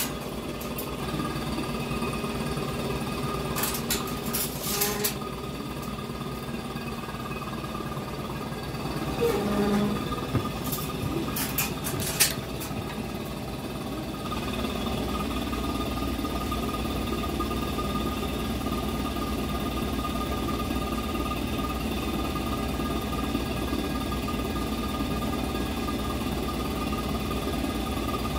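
A small motor hums steadily, with a few short clatters about four seconds in and again around eleven seconds, and runs a little louder from about halfway.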